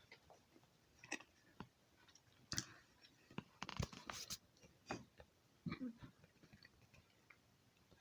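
Faint sounds of a person chewing and eating, with scattered soft clicks and smacks and a few louder bursts around the middle.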